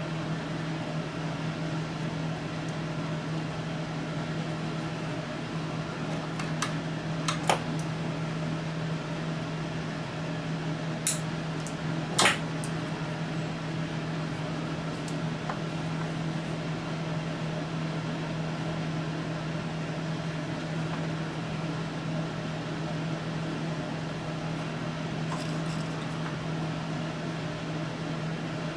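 Steady low hum with a fan-like hiss from workshop equipment. A handful of sharp clicks and taps from small tools and parts handled on the bench break through it, the loudest about twelve seconds in.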